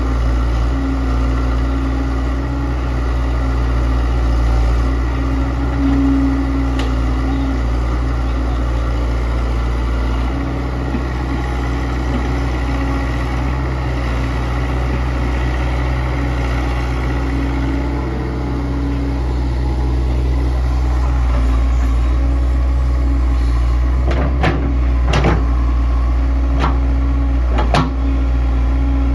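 Kobelco SK100-1 hydraulic excavator's diesel engine running steadily while it works, with a few sharp knocks near the end.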